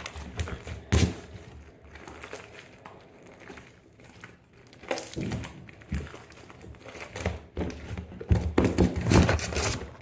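Hands kneading and squishing sticky homemade slime made of glue and shaving cream, giving irregular soft crackles and clicks that grow busier near the end.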